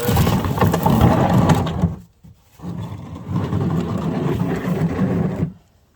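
Something being dragged across the ground in two long scraping slides, the first about two seconds long and the second about three, with a short pause between.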